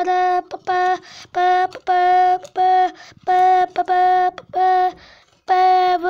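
A voice chanting short syllables on one unchanging pitch, about nine in a row with brief gaps, a mouth imitation of a washing machine's agitator churning.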